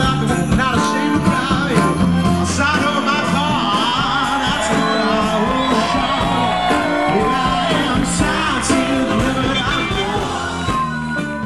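Rock song with a singer over guitar and drums, starting to fade near the end.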